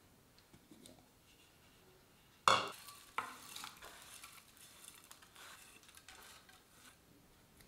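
A sudden loud clatter about two and a half seconds in, then a spoon stirring and scraping in a cooking pan, with another sharp hit just after.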